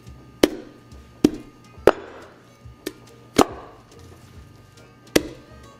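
Knife chopping corn cobs into small pieces on a wooden cutting board: about six sharp chops, unevenly spaced, roughly a second apart.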